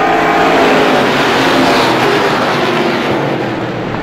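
A pack of Strictly Stock short-track race cars running at speed together: a loud, dense mix of many engine notes, easing off slightly near the end.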